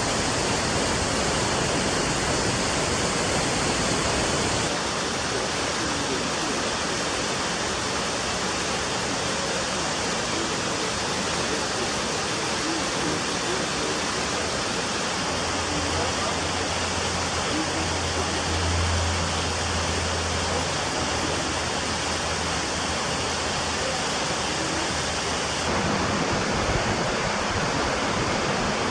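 Waterfall rushing steadily, a dense roar of falling water whose character shifts abruptly about five seconds in and again near the end as it moves from one fall to another. A low hum sits under it for several seconds midway.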